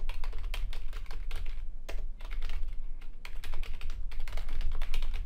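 Typing on a computer keyboard: quick runs of key clicks broken by a couple of short pauses, over a steady low hum.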